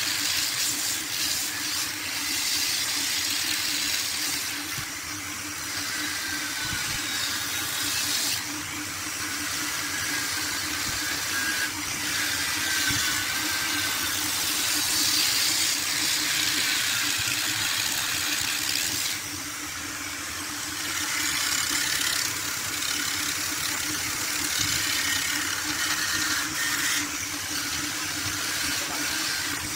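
Angle grinder fitted with a sanding disc, running against a wooden vase spinning on a wood lathe. The motors give a steady hum under a loud, continuous abrasive hiss that swells and eases in places as the pad works the surface.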